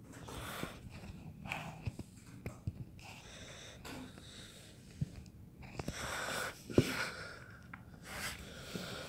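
A person breathing close to the microphone in soft, irregular puffs, with a couple of light clicks.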